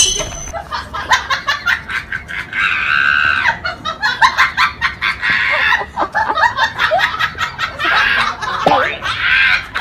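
Laughter in quick, choppy bursts, rising to higher-pitched stretches about a third of the way in and again near the end.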